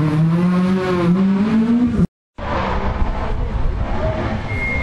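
Rally car engine revving hard with a steadily rising pitch as the car accelerates along the stage, then an abrupt cut about two seconds in to the rougher engine noise of another rally car on the stage.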